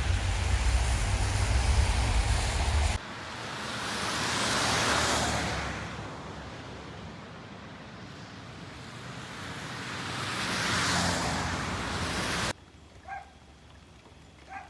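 Vehicles passing on a wet, slushy road: two slow swells of tyre swish that rise and fall. Before them comes a few seconds of steady low wind rumble, and near the end a dog gives two short barks.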